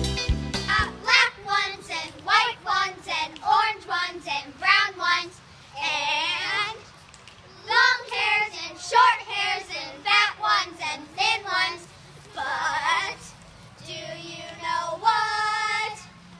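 Girls singing without instrumental backing, in short phrases with brief pauses between. A band-backed song cuts off about half a second in.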